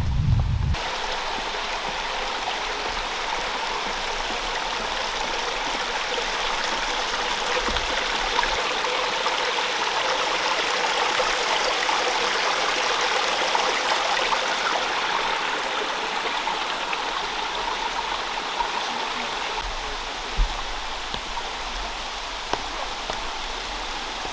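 Steady rush of running water from a brook. A low wind rumble on the microphone cuts off under a second in, and there is a single soft thump about twenty seconds in.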